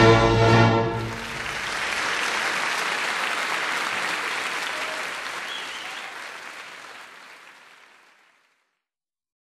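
Orchestral music ends on a held final chord about a second in, followed by audience applause that fades out gradually over several seconds.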